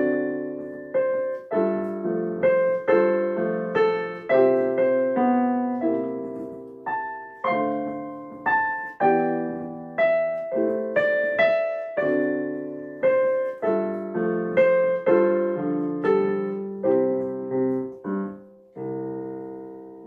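Solo piano playing a piece of chords, each note struck and left to ring away, closing on one long held chord near the end.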